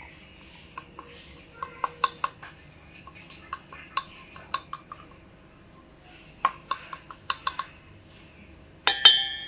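Light clicks and taps of a metal spoon scooping pepper powder from a plastic spice container and tapping it into a stainless steel bowl, in three short clusters, then a louder ringing clank of the spoon striking the steel bowl near the end.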